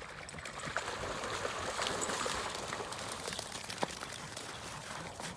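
Several dogs running and splashing through shallow water: a dense splashing with scattered sharp clicks. It is heaviest about two seconds in and eases off as the dogs come out of the water.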